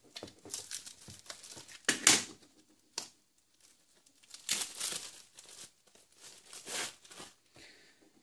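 Plastic courier mailer bag being slit with a utility knife and torn open by hand: irregular bursts of plastic crinkling and tearing, with a short click about three seconds in.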